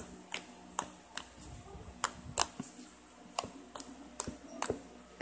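Fingers pressing and poking thick, dough-like blue slime, giving about a dozen sharp clicking pops at irregular intervals of roughly half a second.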